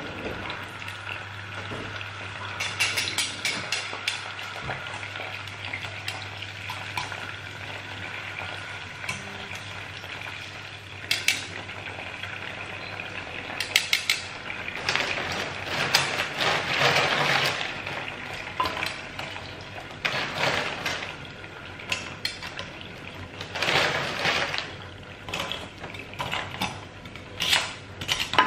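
Food frying in oil in a ceramic-coated pan, a steady sizzle, with several bouts of a metal spatula scraping and clinking against the pan as the pieces are turned, the longest about halfway through.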